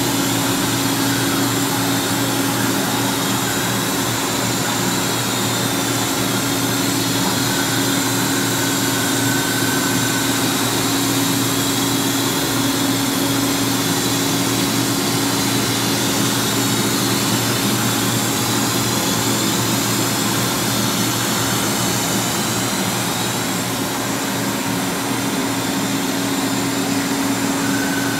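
LK Machinery TC-1200 vertical CNC drill-tap center running its program: a steady mechanical whine over a strong, even hum, with faint high tones that slowly rise and fall as the spindle and axes work.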